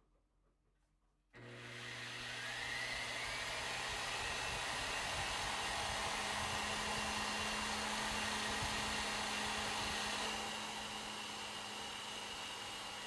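Milwaukee sander fitted with a Scotch-Brite pad starting up with a rising whine about a second in, then running steadily while buffing oxidation off aluminium spoke nipples. It gets a little quieter near the end.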